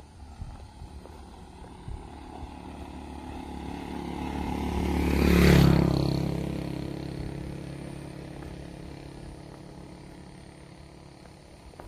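Motorcycle passing by on the road, its engine growing louder to a peak about five and a half seconds in and then fading away.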